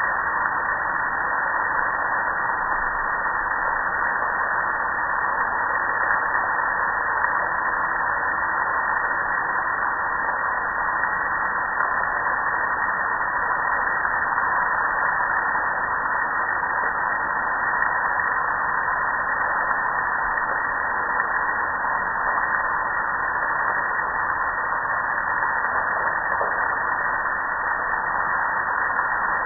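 Water spraying steadily onto a soapy gas grill: a continuous, even hiss that does not break or change.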